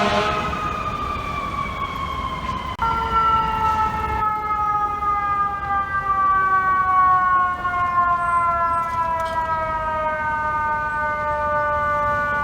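Fire truck's mechanical siren winding down, its pitch falling slowly and steadily. About three seconds in it jumps back up, louder, and falls slowly again.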